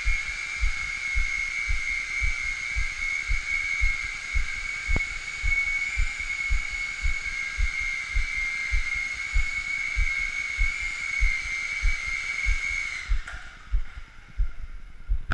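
Toy R/C helicopter's small electric motor whining steadily under a low pulse about three times a second, the whine cutting off about 13 seconds in, with a few sharp clicks at the very end.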